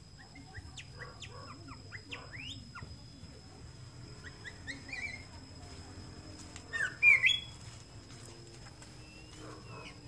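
White-rumped shama singing: a run of short whistled and chirping notes, many sliding up or down in pitch, with its loudest phrase about seven seconds in.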